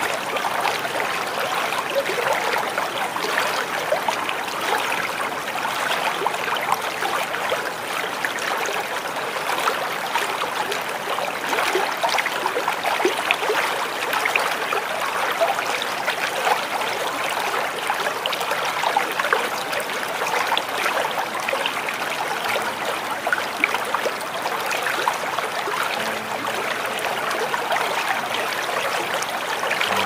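Small waterfall splashing and trickling steadily, a continuous rush of falling water without pauses.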